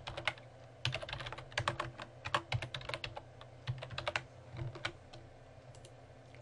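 Typing on a computer keyboard: irregular clusters of keystroke clicks, dying away about five seconds in.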